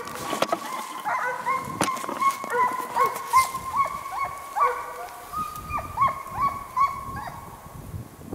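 Russian hounds giving voice in chase, a rapid run of high baying yelps over a held howling note, the sign that the hounds are working a hare's scent trail. The calls die away about seven seconds in.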